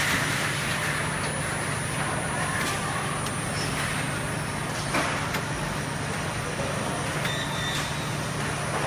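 Tunnel baking oven running with its mesh conveyor belt moving: a steady mechanical hum with a constant low drone, broken by a few short clicks, the clearest about five seconds in.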